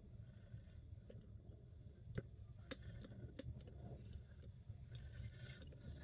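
Faint metallic clicking and scraping of a wire lock pick working inside an ERA padlock, with a few sharp ticks about two to three and a half seconds in and a light scratching near the end, over a low steady hum.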